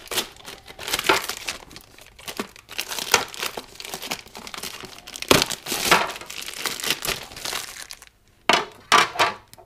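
Clear plastic wrap crinkling and crackling irregularly as it is pulled off chrome-plated frame covers by hand, with a short pause near the end.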